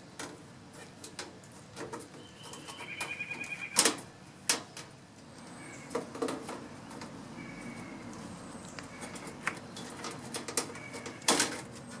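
Metal louvered grille panels of a York condensing unit clattering and knocking against the cabinet as they are fitted back on: a scatter of clicks, with two louder clanks about four seconds in and near the end.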